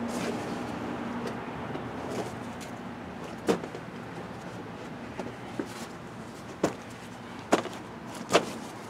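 A handful of short, sharp metal clanks and knocks, spaced irregularly through the second half, as the heavy front wheel hub and brake rotor assembly is handled and worked loose.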